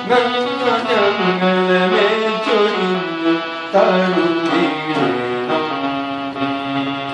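Electronic keyboard playing a slow melody of long held notes over chords, the notes changing every second or so.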